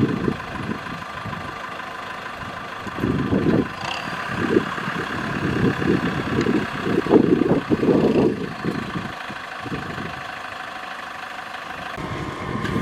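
Farm tractor engine running while the tractor is stuck in deep mud, louder in uneven surges from about three to nine seconds in as it strains to drive out.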